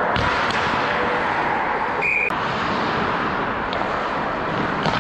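Steady noisy rush of ice hockey play: skates scraping the ice and rink noise. A short, steady high beep sounds about two seconds in.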